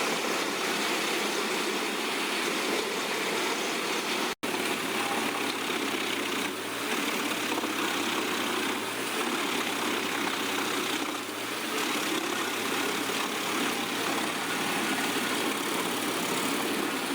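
Large industrial wood crusher running steadily, its engine and grinding making a dense, even noise. The sound cuts out for an instant about four seconds in, then carries on unchanged.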